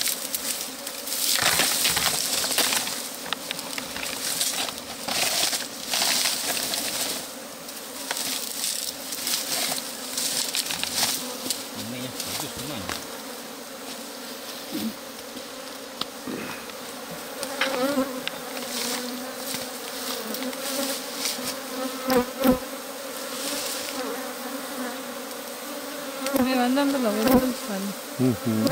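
A swarm of Africanized honeybees buzzing steadily in a mass around their colony on a tree trunk, stirred up by a beekeeper's gloved hands. Irregular bursts of noise sit over the buzz, most of them in the first ten seconds.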